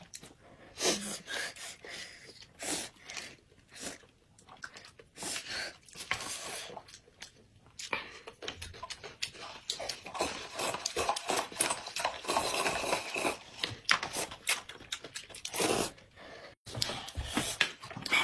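Two people slurping and chewing noodles, with noisy breaths between mouthfuls; the slurping is densest in the middle stretch.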